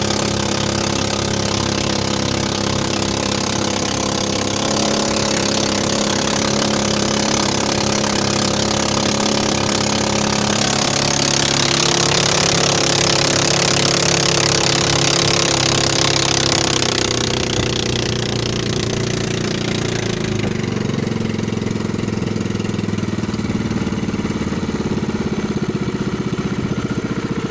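Small engine of a motorized outrigger boat running steadily under way, with water rushing past the hull. The rushing water is loudest in the middle. Later the engine note changes and the water sound fades.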